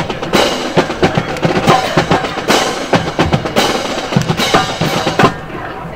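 Marine band drum line playing a marching cadence on snare and bass drums, in a steady march rhythm. The drumming stops about five seconds in.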